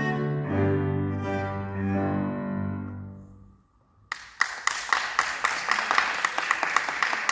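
Solo cello closing the first movement with a few sustained bowed notes, the last one fading out about three and a half seconds in. After a brief hush, an audience starts clapping about four seconds in.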